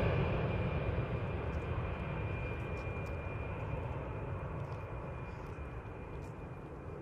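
Fixed-wing aircraft engine noise fading steadily as the aircraft moves away: a broad rumble with a steady high whine running through it.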